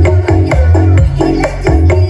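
Electronic dance remix played loud through a home speaker system: a 15-inch RCF LF15X400 subwoofer with 10-inch mids and a tweeter. The heavy bass beat comes about twice a second under a repeating melodic pattern.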